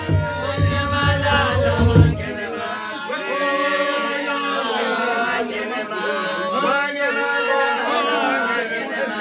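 A group of voices singing a Xhosa chant together, their pitches sliding and overlapping. A rhythmic low thudding beat underlies the first couple of seconds, then stops, leaving the voices alone.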